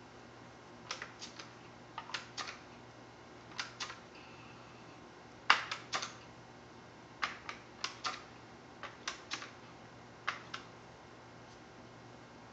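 Sharp plastic-and-metal clicks in small clusters of two or three from handling the mechanism of a Daisy 880 air rifle, the loudest a little past halfway.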